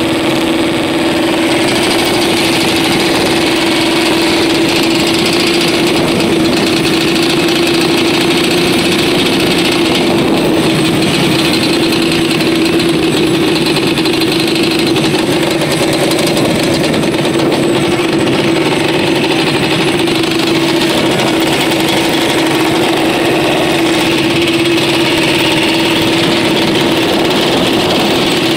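Small off-road vehicle engine running at a steady speed, its drone holding one even pitch.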